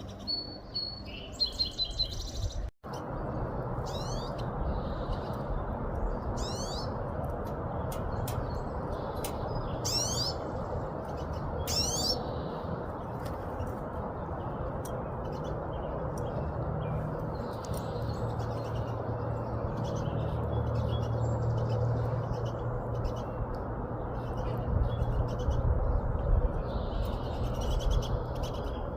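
Small songbirds calling: a short run of high notes about a second in, then four quick sweeping high calls over the next ten seconds, with fainter scattered calls later. A steady low background hum runs underneath.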